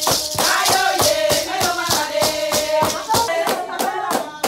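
Group of women singing over a fast, even beat of handclaps and rattles, about four strokes a second.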